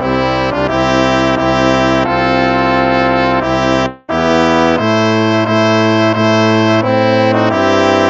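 Instrumental hymn played by brass instruments in slow, held chords, with a short break between phrases about four seconds in.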